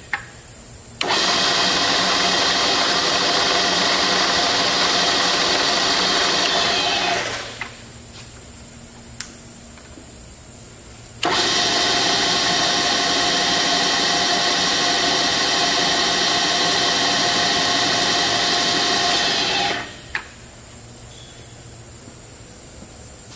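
Comet vertical knee mill's spindle running with a steady whine. It is stopped at the outset and starts abruptly about a second in, then coasts down to a stop about seven seconds in. It starts abruptly again around eleven seconds and coasts down again near twenty seconds, with a single sharp click in each pause.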